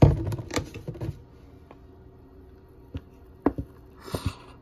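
A plastic cup of soapy water holding keyboard keycaps being handled: a rapid clatter of clicks in the first second, then a few separate knocks and a short rustle near the end.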